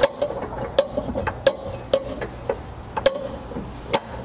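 Hydraulic floor jack being pumped to raise the rear subframe: a sharp metallic click with a brief ring on each stroke, about two a second.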